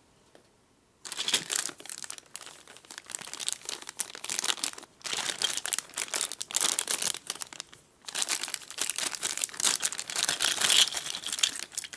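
Thin clear plastic bag crinkling as it is handled and cut open with scissors. The crackling starts about a second in and comes in uneven stretches, with short lulls.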